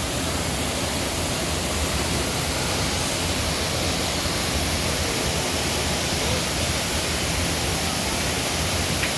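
Steady rush of water falling at Düden Waterfall, an even, unbroken noise.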